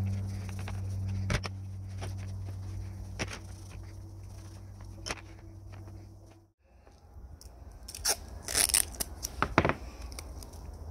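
A steady low hum with light cloth rubbing on cast iron, cutting off suddenly about six seconds in. After a moment of near silence comes a run of sharp, crackling rips: adhesive tape being pulled off the roll and torn.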